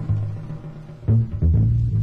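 Live small-group jazz: a double bass plays low, sustained notes with a few light drum strokes, and a louder bass note comes in about a second in.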